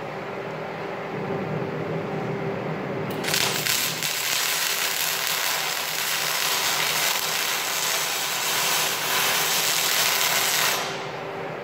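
MIG welding arc on a steel I-beam: a steady hiss that starts suddenly about three seconds in and stops near the end, over a steady machine hum.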